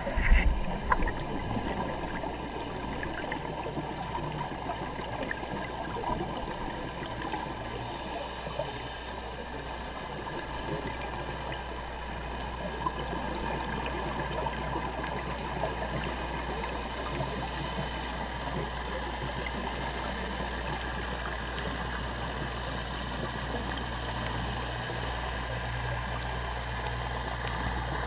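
Underwater ambience on a scuba dive: a steady, muffled low rumble under a dense crackling hiss, with three brief faint high hisses spread through it.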